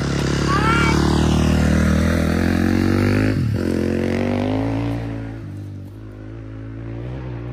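A motor vehicle engine running close by, its pitch wavering and rising a little before it fades about five and a half seconds in. A brief high chirp is heard near the start.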